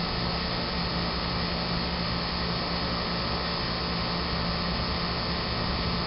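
York 2.5-ton central air-conditioner condensing unit running: a steady rush of air from the condenser fan with a steady low hum.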